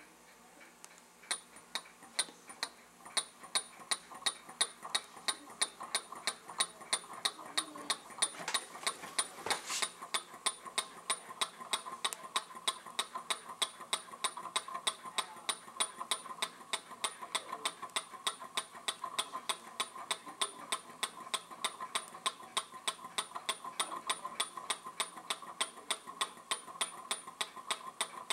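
Small scratch-built laminar flow Stirling engine running on its alcohol burner, its mechanism ticking at an even pace of about four clicks a second; the ticking starts about a second in.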